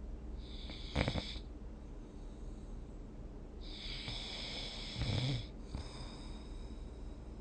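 A person snoring in sleep: two snores about four seconds apart, each a hissing breath that ends in a brief low snore.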